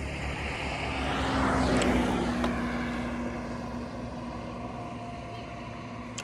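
Royal Enfield Himalayan's single-cylinder engine running at road speed, heard with road and wind noise on the helmet-mounted microphone. A louder rush of noise swells and fades about one to two seconds in, as a vehicle passes.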